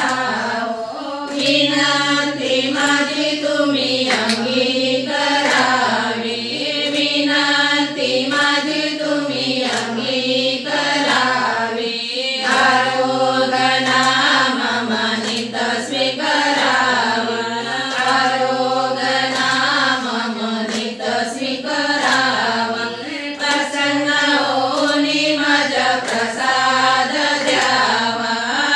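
A group of women singing a devotional hymn together in unison, clapping their hands in time.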